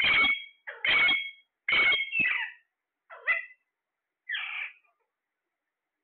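Alexandrine parakeets calling: a run of about seven short, loud, shrill calls in quick succession, each about half a second long, ending about five seconds in.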